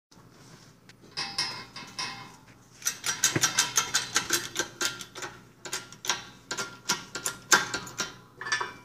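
Hydraulic bottle jack in a shop press being pumped by its handle to press a riding mower wheel hub off its axle: a ringing metallic squeal about a second in, then a quick, uneven run of metallic clicks and clanks.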